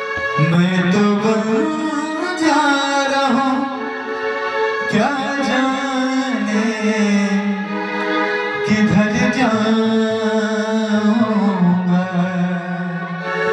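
Ghazal sung by a male voice in long, gliding held notes, to a Roland electronic keyboard and dholak drum.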